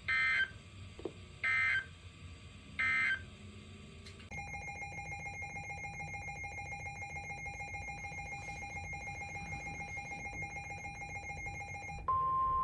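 Emergency Alert System data signal: three short warbling bursts of the end-of-message code, about a second apart, mark the end of the previous alert. A steady electronic tone with a fast flutter follows for about eight seconds. Near the end the steady single-pitch NOAA Weather Radio 1050 Hz warning alarm tone starts, which signals that a new warning is coming.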